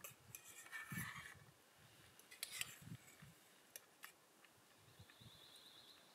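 Near silence with faint, scattered clicks and scrapes of a spoon in a metal camp cooking pot while eating.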